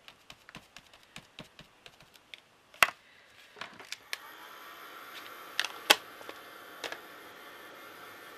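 Light, quick taps of a small ink applicator dabbing ink onto card, with one louder knock near the middle. About four seconds in, a craft heat gun switches on and its fan blows steadily over the wet ink.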